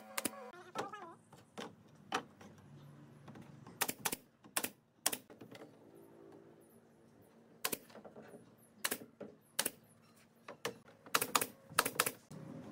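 Pneumatic nail gun firing nails into pine shingle boards: a dozen or so sharp shots at uneven spacing, some in quick pairs or runs.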